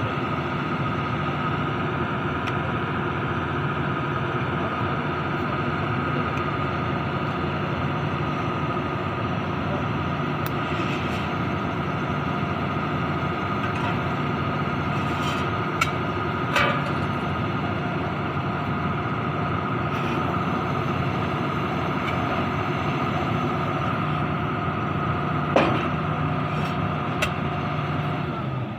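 Truck-mounted borewell drilling rig running steadily with an even engine hum. A few sharp metallic knocks come about halfway through and again near the end.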